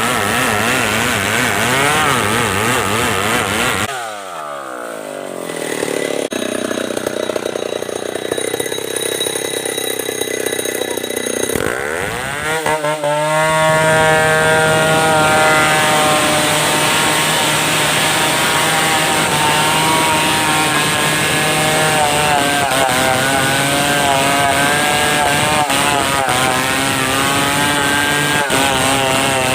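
Stihl 070 two-stroke chainsaw running at high revs. About four seconds in it drops back to a quieter, lower idle. Around twelve seconds it revs back up and holds at full throttle.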